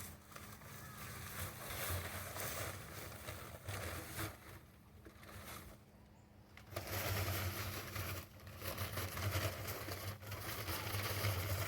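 Electric cement mixer running, its motor humming steadily under the churning and scraping of wet concrete in the drum; the churning dies down for a couple of seconds midway and comes back stronger.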